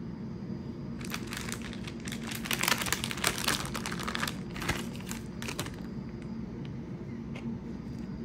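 Plastic packaging of cheese slices crinkling as the slices are handled: a dense run of crackles that starts about a second in, is loudest in the middle and stops about two-thirds of the way through. A steady low hum sits underneath.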